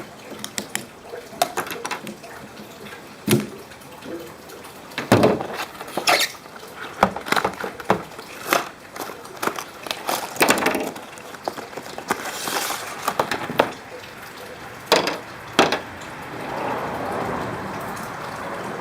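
Irregular clicks, snaps and rustles of a wiper blade being unhooked from and clipped onto a hook-type wiper arm.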